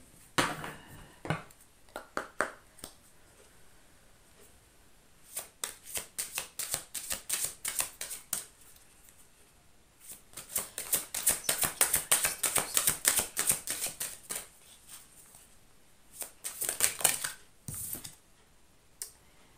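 A deck of oracle cards being shuffled by hand. There are a few single clicks, then three runs of quick card flicking, the middle one the longest and loudest.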